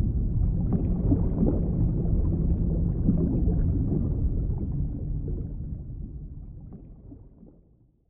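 Low underwater rumble of moving water with scattered faint clicks, fading out over the last three seconds.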